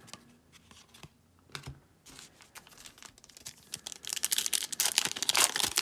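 Foil trading-card pack wrapper crinkling as it is torn open by hand. The crackle builds from about two seconds in and grows louder toward the end, after a few light clicks of cards being handled.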